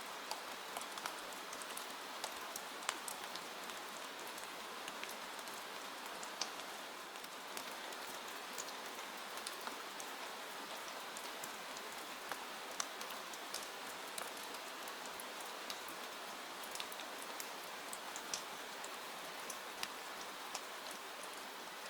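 Steady rain, an even hiss with many scattered sharp ticks of drops and crackles throughout.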